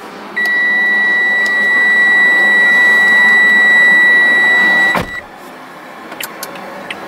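Toyota Vitz GR's in-car warning buzzer, the turn-signal warning sound, giving one continuous high electronic beep. It starts about half a second in, holds steady for about four and a half seconds, then cuts off with a click.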